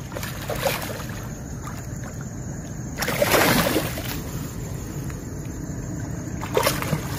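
A hooked fish splashing and thrashing at the water's surface as it is played in on a pole rod: a big splash about three seconds in, with smaller splashes near the start and near the end, over a steady low background noise.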